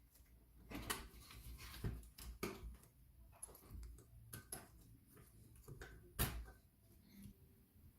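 Irregular light clicks and knocks of small hard parts being handled, about half a dozen sharper taps, the loudest about six seconds in.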